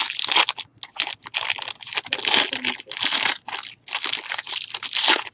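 Plastic trading-card pack wrapper being crinkled and crumpled in the hands, in a series of loud, crackly bursts.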